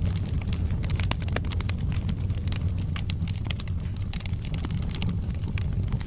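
Wood logs burning in a fireplace: a steady low rumble of the flames with frequent sharp, irregular crackles and pops of the burning wood.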